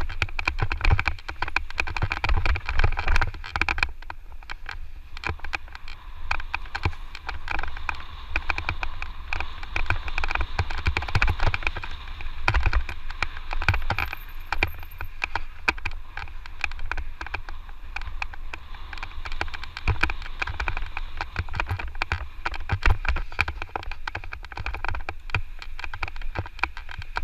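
Electric mountain bike riding a rough dirt trail: tyres crunching over the ground and the bike rattling with many irregular knocks, over a constant low rumble of wind on the microphone.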